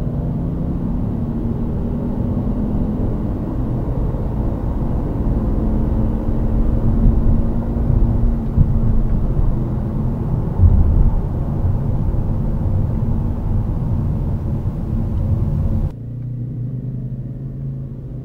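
Mercedes-Benz W212 E-Class driving, heard from inside the cabin: a steady road and tyre rumble with a low engine drone. Near the end the noise drops abruptly to a quieter low hum.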